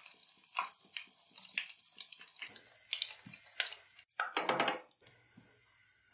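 Hot oil in a kadai sizzling and crackling with many small pops as fried potato chops are lifted out in a wire spider strainer, with light clinks of the metal strainer. A brief louder rush of noise comes about four seconds in, after which the sizzle is quieter.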